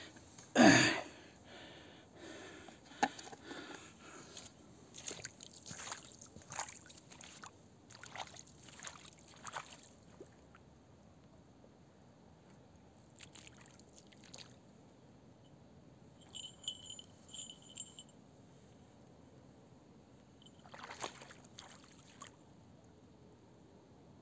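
Footsteps and brushing through grass and bushes on a wet river bank, with a loud swish about a second in and a run of rustles and crunches after it. Later there are a few short high tones in a row and one more rustle.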